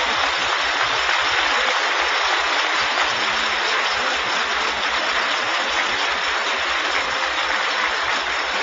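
An audience applauding steadily: a dense, even patter of many hands clapping after a line of a speech.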